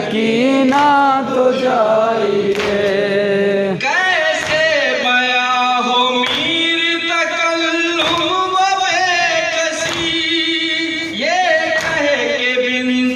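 Group of men chanting a noha (mourning lament) in unison, in long, drawn-out sung lines, with regular hand slaps of matam (chest-beating) keeping time.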